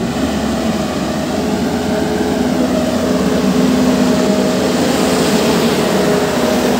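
Diesel engine of an L&T 1190 single-drum vibratory road roller running steadily while the machine drives slowly across the field, a loud, even drone with a steady hum.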